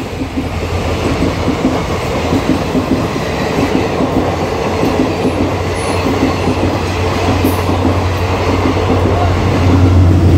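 Diesel multiple-unit passenger train passing at close range: a continuous rumble of wheels on the rails over a steady low hum, getting louder near the end.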